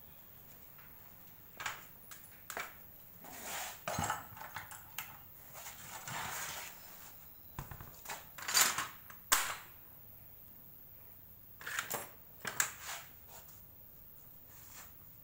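Scattered knocks, scrapes and metallic clinks as a scooter wheel with a tubeless tyre is set down and handled on a tiled floor and a metal hand tool is picked up. The sharpest clicks come in two clusters, about a third and four fifths of the way through.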